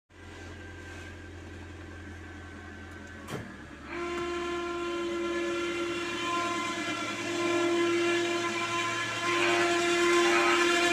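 A car air-conditioning system making a strange sound. Over a low steady hum there is a click about three seconds in. A second later a steady whistling whine starts and gets louder, in a car whose AC is blowing hot.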